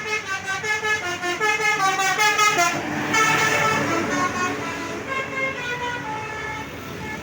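Tourist bus's Basuri 'telolet' multi-tone horn playing a quick tune of short stepped notes, about four a second, then a louder held chord about three seconds in, then more short notes.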